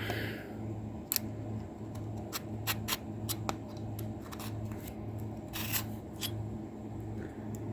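Machete blade being worked on a cheap sharpener: irregular short metal scraping strokes and clicks, with one longer scrape near the end.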